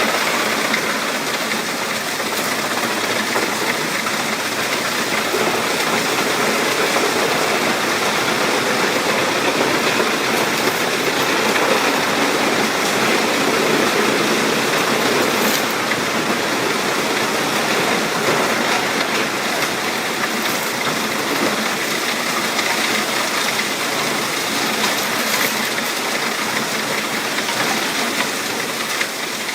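Wood chipper running steadily, a continuous dense mechanical noise with no separate strikes.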